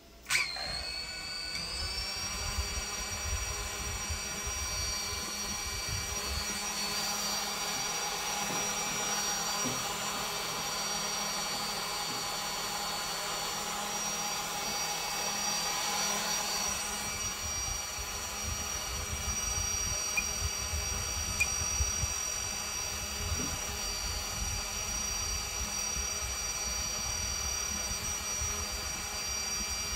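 DJI FPV drone's motors and three-blade propellers starting up suddenly and whining, with the pitch rising over the first two seconds and then holding a steady high whine. A fluctuating low rumble runs underneath.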